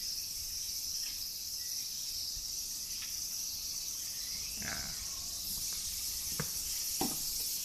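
Steady outdoor insect chorus, an even high-pitched buzz, with a couple of faint clicks near the end.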